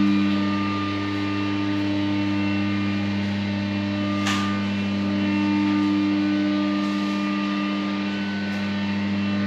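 Steady electrical hum, a low buzz with fainter higher tones above it, with one soft click about four seconds in.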